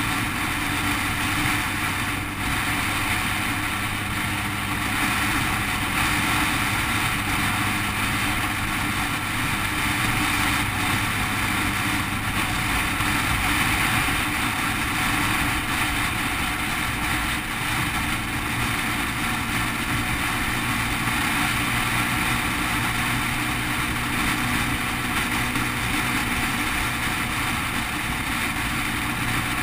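Motorcycle engine running steadily at cruising speed, heard from the bike itself along with a constant rush of wind and road noise.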